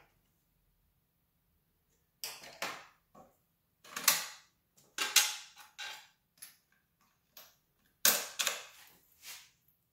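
Small precision screwdriver prying and scraping at a plastic injector wiring-harness connector, working its little locking cap loose, in a string of short irregular creaks and clicks, loudest around four, five and eight seconds in.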